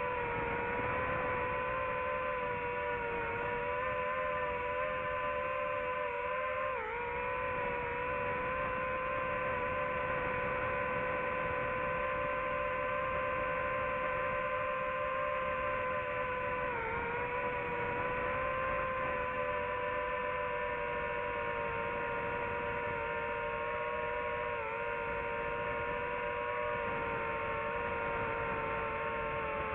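DJI FPV drone's motors and propellers whining steadily in flight, the pitch dipping briefly three times as the throttle eases.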